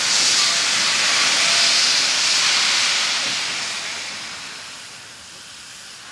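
Steam blasting out of the cylinder drain cocks of Garratt steam locomotive 6029: a loud, even hiss that swells at the start and fades away over the last few seconds.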